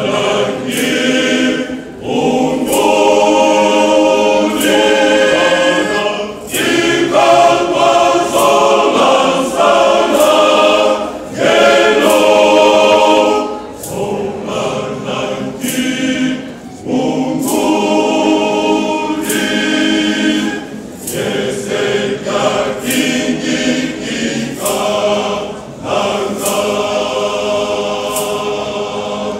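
Male voice choir singing together, in phrases separated by short breaks.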